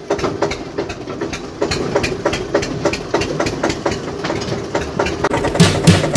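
Farm tractor's diesel engine running while it drives, a steady rapid knocking beat. Background music with a heavy bass beat comes in near the end.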